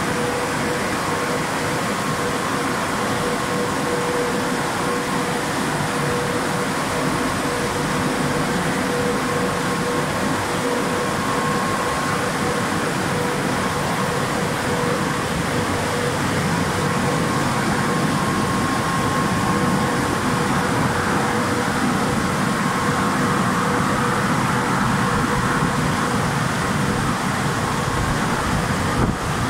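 California Rohé C45 E2 rollover car wash running over a car: a loud, steady machine rush with a constant hum.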